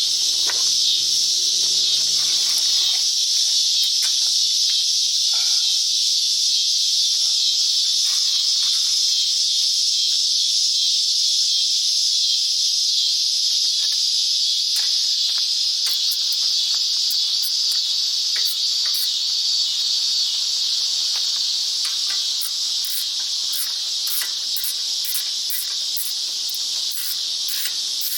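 Steady, high-pitched chorus of insects buzzing, with scattered faint clicks in the second half.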